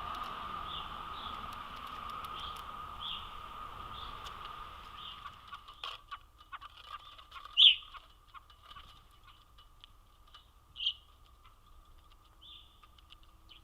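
Birds calling: faint short chirps over a steady hiss, then the hiss drops away and two louder single calls sound about three seconds apart.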